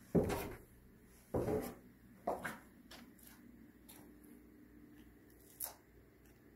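A few short scuffs and rubs, about four in all, spaced irregularly, over a faint steady low hum.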